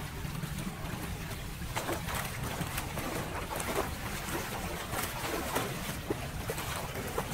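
Floodwater rushing and swirling down a freshly cleared street drain grate, over a low rumble. From about two seconds in come repeated short splashes as feet and hands move through the shallow water.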